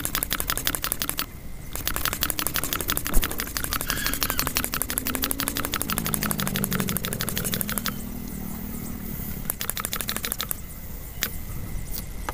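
Homemade syringe hand air pump being worked fast to blow up a rubber balloon: a rapid, even run of clicks, several a second, with a short break at about a second and a half, thinning to scattered clicks after about eight seconds.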